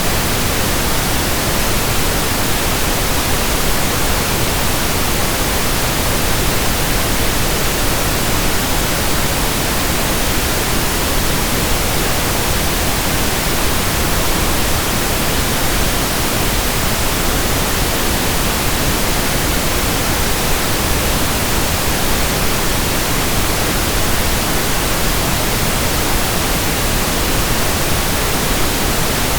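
Steady pink noise: an even, unbroken hiss that does not change in level.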